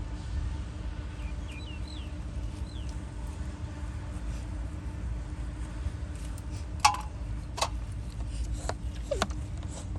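Steady low rumble and hum with a few faint chirps about two seconds in, then a handful of sharp clicks and knocks in the second half.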